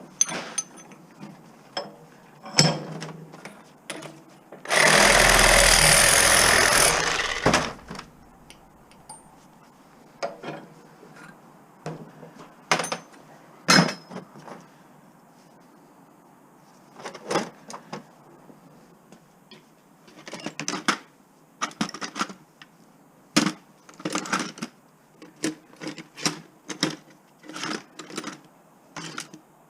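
Scattered clicks, knocks and clatter of metal scrap parts being handled and taken apart, with a loud, steady burst of a power tool running for about three seconds near the five-second mark.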